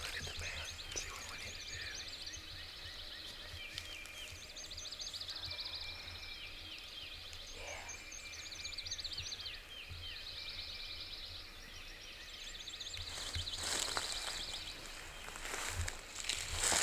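Songbirds singing in the dawn woods: repeated high, fast trills and short down-slurred chirps. A rustle in dry leaves comes in near the end.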